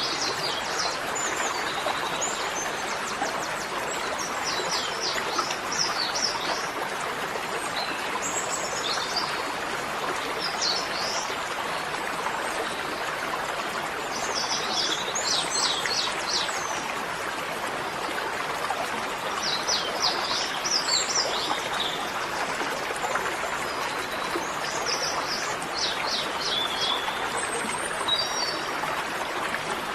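Birds singing short phrases of rapid high chirps every few seconds over a steady rushing noise like flowing water.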